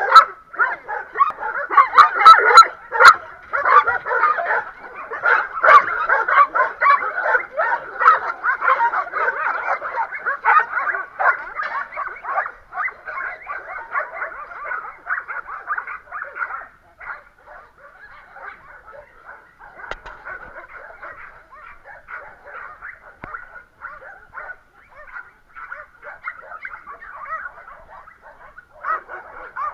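Many dogs barking without pause, a dense overlapping chorus that is loudest over the first twelve seconds or so and then carries on fainter.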